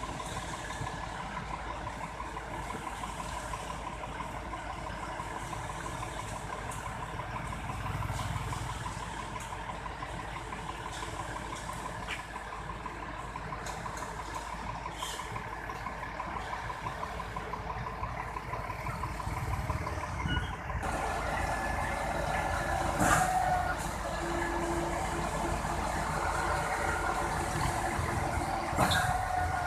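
A concrete mixer truck's diesel engine running steadily. It grows louder about two-thirds of the way through, with two sharp noises near the end.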